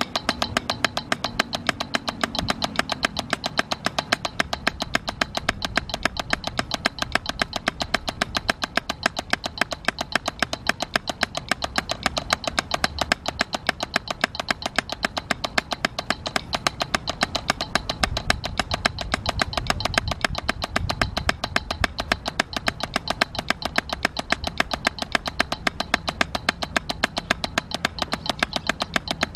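Wooden drumsticks striking a drum practice pad in a fast, even stream of strokes at tempo 110, some strokes louder than others as accents in a stroke-type exercise.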